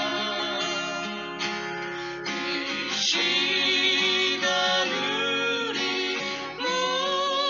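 A gospel song: a singer's voice with vibrato over guitar accompaniment, in phrases that pause and start again twice.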